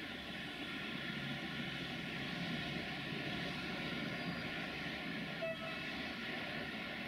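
Train running through a station: a steady rumble with faint steady tones and a short squeak about five and a half seconds in.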